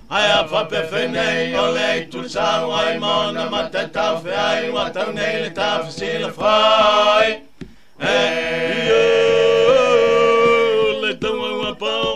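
Four Samoan men singing unaccompanied in a chant-like style, in short phrases with several voices together. The singing breaks off briefly about seven and a half seconds in, then resumes with one long held chord before short phrases again near the end.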